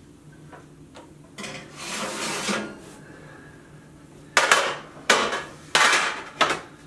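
A metal baking pan scraping out over an electric oven's wire rack, then clattering four times as it is handled and set down on the stovetop.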